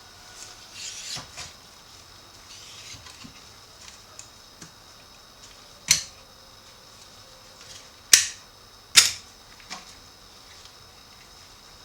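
Handling of a tie-down strap and its hardware: rustling in the first few seconds, then three sharp clicks about six, eight and nine seconds in, with a fainter click just after.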